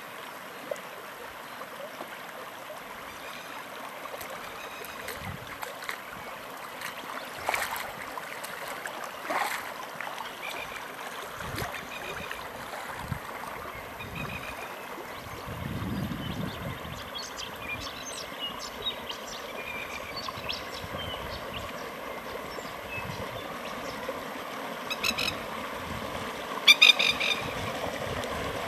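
Floodwater rushing and gurgling along a shallow runoff channel across a paddock, a steady wash of water noise. A few brief sharp sounds cut through it, the loudest a quick rattling run near the end.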